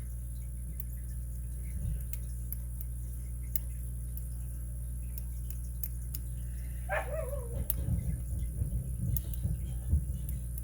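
Faint scattered clicks of a hook pick working the pins of a Master Lock 930/950 padlock's six-pin core, over a steady low hum. About seven seconds in a dog gives a brief whine that falls in pitch, followed by some low handling noise.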